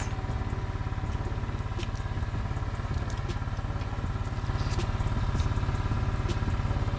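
A small engine running steadily at idle, a fast even pulsing drone that grows a little louder about halfway through. Scattered light clicks of crab shells being cracked and picked apart by hand sound over it.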